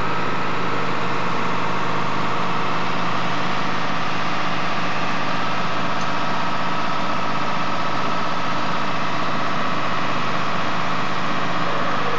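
Fire engines running steadily on the fireground, their pumps supplying the hose lines laid out from them.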